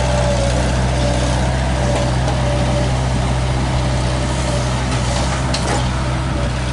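Bobcat skid-steer loader's engine running steadily as the machine drives off dragging a long wooden pole on a chain, with a faint steady whine above the engine. The sound eases slightly near the end as the loader moves away.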